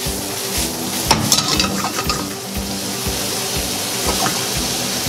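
Blanched broccoli sizzling in butter in a stainless steel skillet on a gas burner, with a steady hiss. The pan is shaken to toss the broccoli, with a brief scraping clatter about a second in.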